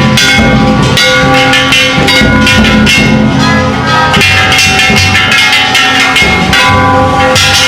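Ishidori festival float music: a large taiko drum and bronze kane gongs struck hard and continuously in quick succession. The gongs ring on between strokes, and the whole is very loud.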